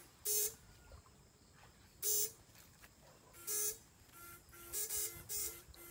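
Electric fishing shocker zapping through pole electrodes dipped in the water: five short, harsh buzzes. The first three come a second and a half to two seconds apart, and the last two are closer together near the end. In the second half, short steady beeps repeat between the buzzes.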